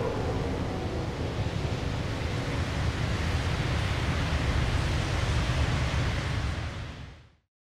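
Steady rushing wind noise, heaviest in the low end, fading out to silence about seven seconds in.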